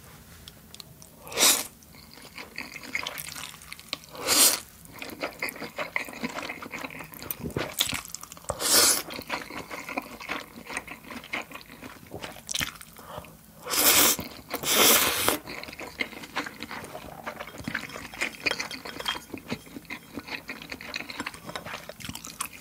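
Close-miked slurping of spicy instant ramen noodles: several loud slurps with chewing and small wet mouth clicks between.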